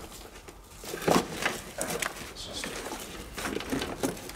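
Irregular clicks, knocks and rustling of interior trim and wiring being handled under a car's dashboard during a strip-out, loudest about a second in.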